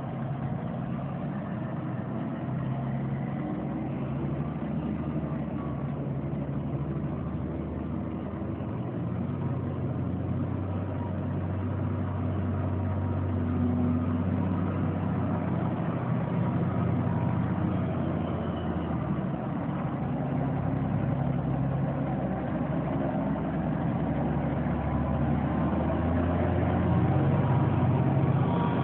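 Caterpillar 627B wheel tractor-scraper's diesel engines running as the machine drives and turns, the engine note changing a couple of times. It grows louder as the scraper comes close near the end.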